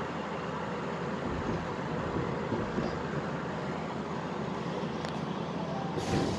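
Running noise of a Nagoya Municipal Subway 6000 series train heard from inside the car: a steady rumble of wheels and running gear, with a hiss rising near the end.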